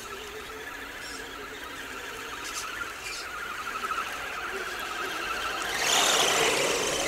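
Small electric motors and gear trains of RC scale off-road trucks whining as they drive through a muddy puddle, the whine wavering in pitch and slowly growing louder. About six seconds in comes a louder rush of noise as the nearer truck drives past close by.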